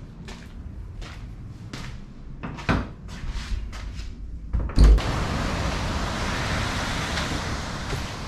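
Footsteps knocking on a hard floor about twice a second, with a louder knock near the middle. A heavy thump just under five seconds in, then a steady rush of breaking surf and wind.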